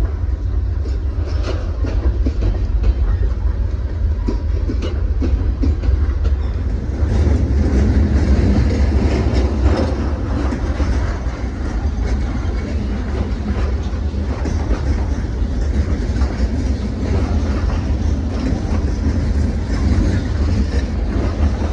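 Cars of a mixed freight train rolling past: a steady low rumble with the clickety-clack of steel wheels over the rail joints, with sharp separate clicks in the first several seconds.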